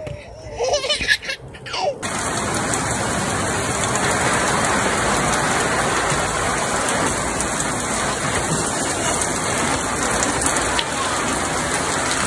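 Steady rain falling, starting abruptly about two seconds in.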